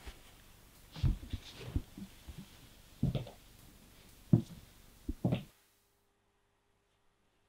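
Handling noise: soft, irregular thumps and rustles as a paperback book is held and the reader shifts on the couch, over a faint hiss. It cuts off to near silence about five and a half seconds in.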